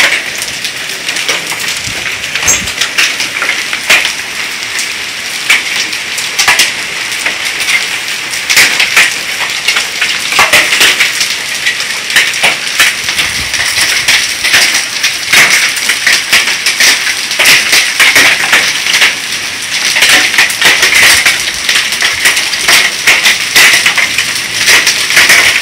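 Heavy rain mixed with small hailstones, less than quarter size, coming down hard, with many sharp clicks of stones striking hard surfaces over a steady rush of rain. It gets a little louder about a third of the way in.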